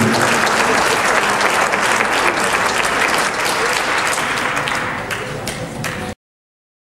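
Audience applauding, a steady mass of clapping that eases slightly and then cuts off suddenly about six seconds in.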